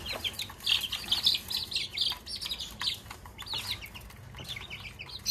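Chicken chicks peeping as they feed: many short, high, falling cheeps in quick runs, with a few light taps.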